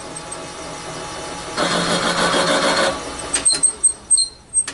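Valve seat machine's workhead being set over the seat: a mechanical whoosh lasting about a second and a half, then a run of sharp clicks and short high squeaks near the end.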